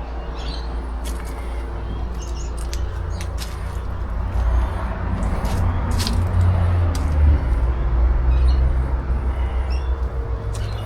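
Small birds chirping faintly over a steady low rumble, with scattered sharp clicks and crackles.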